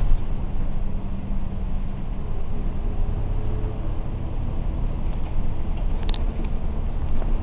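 A city bus's engine running steadily while it drives, heard from inside the cabin with road noise, and a brief click about six seconds in.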